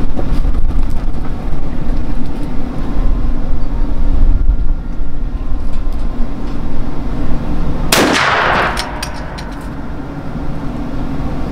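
A single shot from a CVA Optima V2 .50-caliber muzzleloader pistol loaded with 70 grains of Blackhorn 209: a sharp report about eight seconds in with a short ringing tail. Low rumbling noise comes before it.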